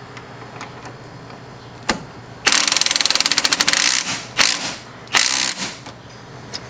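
Cordless Milwaukee M18 impact wrench hammering a sway bar link nut snug, not to full torque: a run of rapid strikes lasting about a second and a half, then two short bursts.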